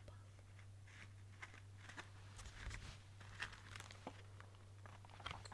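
Near silence: a steady low hum with faint, scattered soft clicks and crackles close to the microphone.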